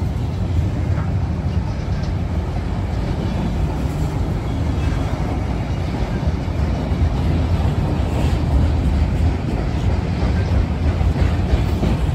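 Freight train of autorack cars rolling past: a steady low rumble of steel wheels on rail, with a few faint clicks.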